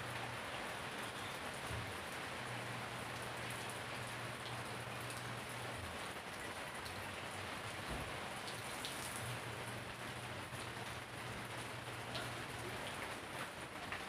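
Steady rain falling: an even hiss with scattered drops tapping.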